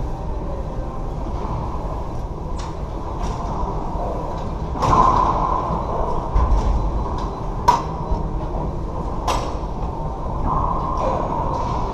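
A few sharp, echoing smacks of a racquetball on the court, the loudest about two-thirds of the way in, over the steady low hum of the enclosed court.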